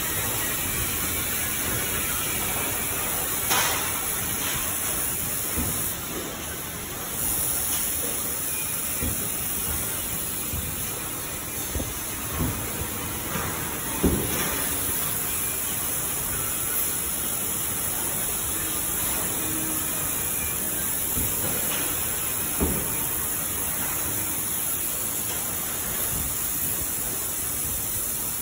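Handheld laser welder working on stainless steel: a steady hiss of shielding gas blowing from the torch, with a few sharp clicks.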